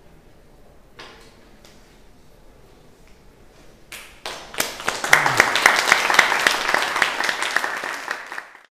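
Small audience applauding at the end of a talk: dense, irregular hand claps starting about four seconds in, cutting off abruptly near the end.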